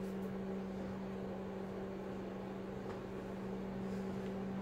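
A steady, unchanging low hum, as from a running motor or electrical appliance.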